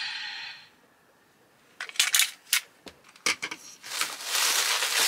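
The tail of an electronic toy morpher's sound effect fades out at the start, then after a short hush several sharp clicks and knocks of hard plastic toys being handled and set down. From about four seconds in, a steady crinkling rustle takes over and is the loudest part.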